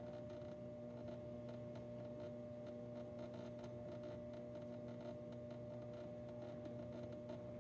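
Electric potter's wheel motor humming steadily as it spins, with a few faint light ticks over it.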